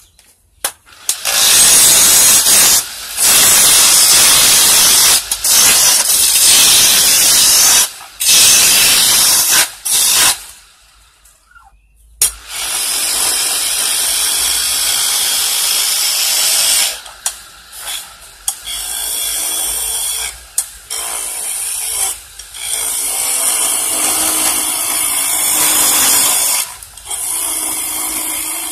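A chisel cutting a wooden handle blank spinning on a manual wood lathe: a loud, rough scraping hiss in spells of a few seconds, broken off whenever the tool lifts from the wood. After a short pause about ten seconds in, the cutting goes on steadier and quieter as the now-round handle is smoothed.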